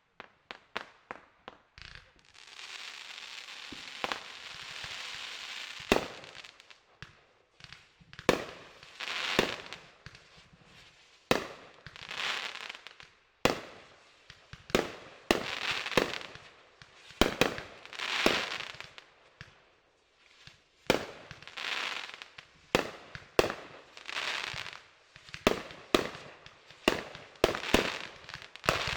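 Fireworks going off: a rapid series of sharp bangs, many followed by crackling swells that last a second or two, with a steady hiss from about two to six seconds in.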